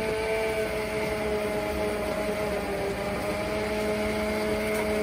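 Electric stick hand blender running steadily with its blade down in a pot of cooked split-pea dal, puréeing it: an even motor hum with a slight dip in pitch around the middle as the blade meets the thick peas.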